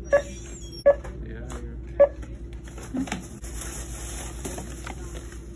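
Three short electronic checkout beeps within about two seconds, over a steady hum from the store.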